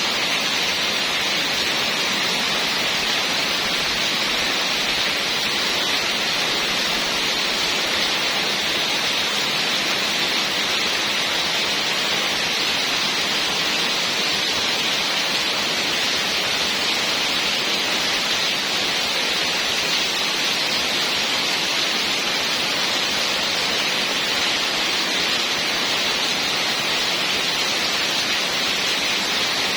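Heavy rain falling steadily as an even, unbroken hiss.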